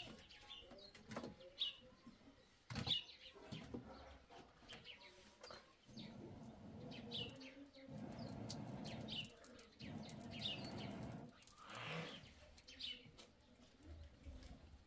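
Wooden sticks knocking as a wood fire is laid, with birds chirping now and then. From about six seconds in, a breathy rushing in several long puffs with short breaks: a person blowing on the smouldering embers to get the fire going.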